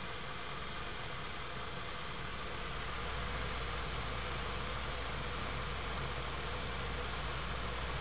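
Stovetop kettle heating toward the boil: a steady hiss over a deep hum, with a few faint steady tones, getting a little louder about three seconds in.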